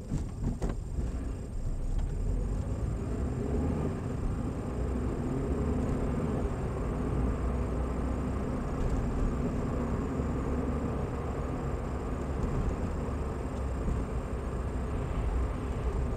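Car interior road and engine noise picked up by a dashcam microphone: a steady low rumble as the car gathers speed.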